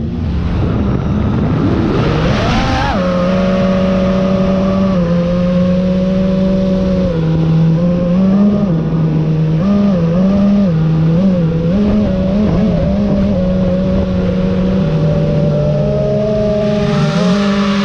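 FPV quadcopter's brushless motors and propellers whining. The pitch climbs steeply about one to three seconds in as the throttle is pushed, then holds, shifting up and down with the throttle.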